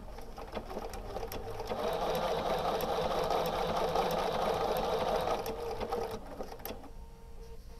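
Bernina sewing machine running a narrow blanket stitch: a steady whir that picks up about a second in and stops about six seconds in.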